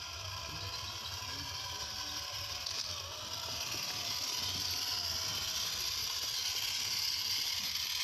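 RC scale crawler's electric motor and geared drivetrain whirring as it crawls, with a faint pitch that wavers up and down with the throttle. The sound grows slightly louder toward the end.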